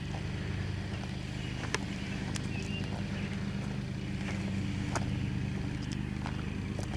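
Nissan 240SX's turbocharged SR20DET four-cylinder idling steadily, with a few faint clicks over it.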